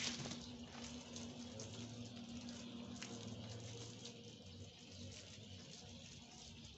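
A thin stream of water from a garden hose nozzle pattering steadily onto a wet shaggy rug, faint.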